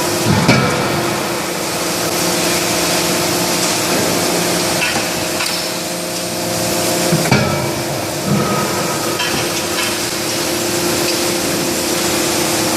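CNC hydraulic die forging hammer working: the steady hum of its hydraulic power unit runs under forge-shop noise. A few heavy blows land, about half a second in and again around seven and eight seconds.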